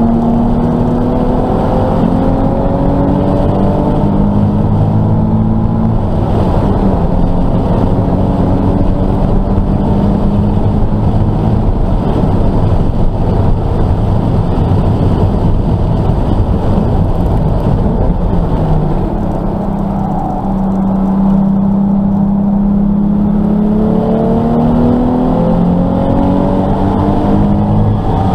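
Nissan 370Z's 3.7-litre V6 heard from inside the cabin, driven hard on track: engine note rising and falling with the revs, dropping briefly about twenty seconds in, then climbing again under acceleration near the end.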